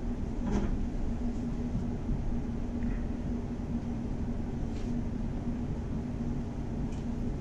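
Renfe series 470 electric multiple unit running along the line: a steady low rumble with a constant hum, and a few brief clicks.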